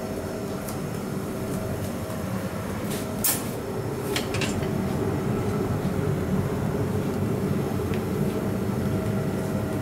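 Steady rumbling roar of a commercial kitchen with a gas-fired tandoor burning, with two light clicks of metal skewers about three and four seconds in.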